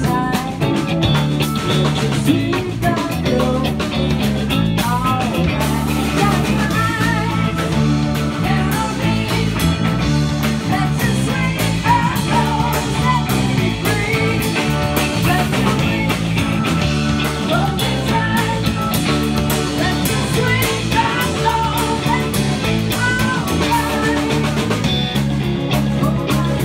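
Live blues-rock band playing: electric guitars, electric bass and drum kit, with a man and a woman singing.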